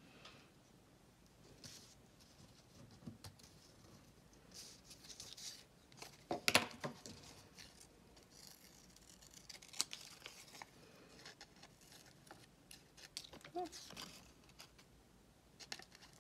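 Small craft scissors cutting paper in short, irregular snips, with paper rustling as the piece is turned between cuts.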